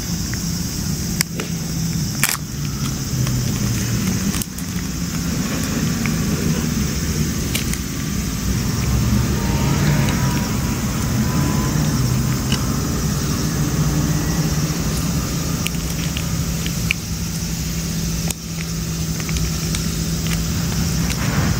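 A cat eating wet food from a metal dish close up, with scattered sharp clicks. Under it runs a steady low drone, the loudest sound throughout.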